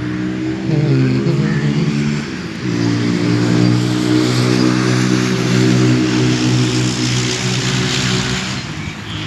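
A motor vehicle's engine running close by, its pitch shifting in the first couple of seconds and then holding steady before easing off near the end.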